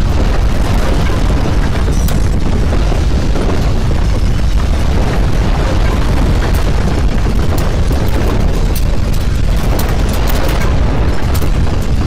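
Earthquake rumble: loud, continuous deep rumbling with crackles and rattles through it, the crackling thicker in the second half.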